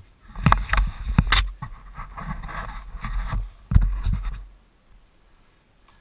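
Scraping and knocking with a few heavy thumps, about a second in and near four seconds; it stops about four and a half seconds in.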